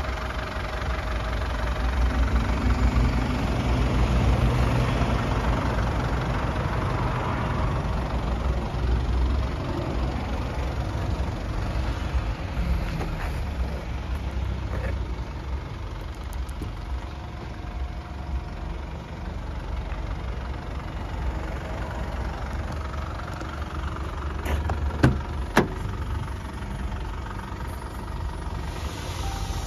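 A Land Rover Discovery's 2.0-litre SD4 four-cylinder diesel idling steadily with a low rumble. Near the end there are two sharp clicks as the door is opened.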